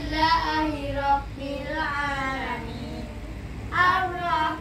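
Children reciting a prayer together aloud in a sing-song chant, with a new phrase starting near the end.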